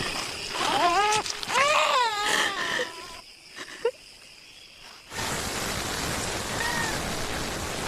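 Several wailing cries that rise and fall in pitch, then a short lull with one sharp click. From about five seconds in, a steady hiss of rain, with a faint short cry under it.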